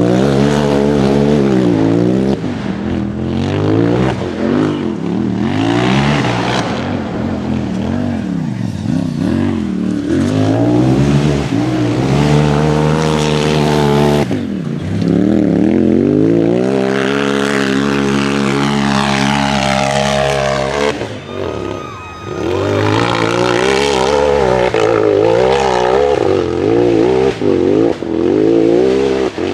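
Racing UTV engine revving hard, its pitch climbing and falling again and again as the throttle is worked, with two deep drops in revs about halfway through and about two-thirds through.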